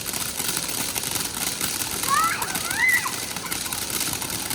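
Fireworks crackling: a steady hiss with rapid, fine crackles. Two short, high, sliding calls from a child about two and three seconds in.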